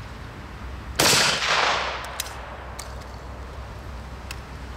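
A single gunshot about a second in, its report echoing away over roughly a second, followed by a few faint sharp clicks.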